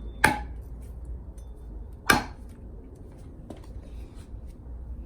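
L.T. Wright Overland Machete chopping in a cut test: two sharp strikes about two seconds apart, then a fainter knock.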